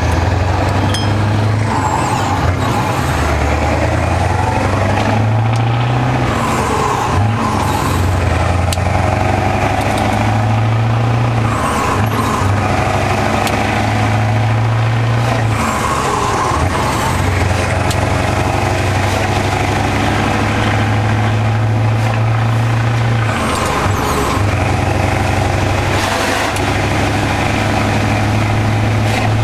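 In-cab sound of a Scania 164L 580's 16-litre V8 diesel pulling away under load, its deep drone climbing and breaking off several times as it shifts up through the gears.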